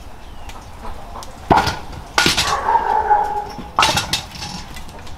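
Kitchenware being knocked and handled: three sharp knocks, the second followed by a ringing tone lasting about a second.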